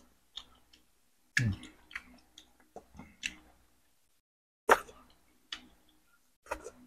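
Close-up eating sounds of someone chewing boiled chicken: irregular wet mouth clicks and smacks, the sharpest about five seconds in.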